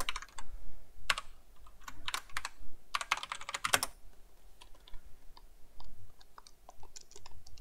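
Typing on a computer keyboard: several quick runs of keystrokes in the first four seconds, then scattered fainter key clicks.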